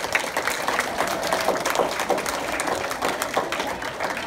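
Audience applauding, with many hands clapping steadily throughout.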